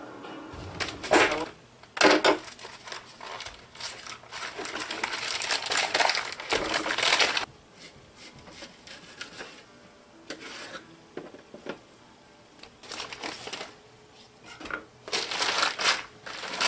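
Knife slicing through partially frozen venison roast on a cutting board: irregular crunching, scraping strokes with sharp knocks of the blade on the board, heaviest in the first half and again near the end. Paper towels are crumpled near the end.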